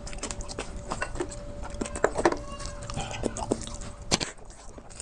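Close-miked eating of bulalo beef-shank soup: chewing and wet mouth sounds with many short clicks, and one sharp click a little after four seconds in. A faint steady hum runs underneath.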